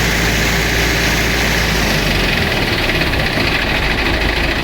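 A 50 kg plastic mixer machine running, a loud, steady mechanical drone with a low hum beneath it.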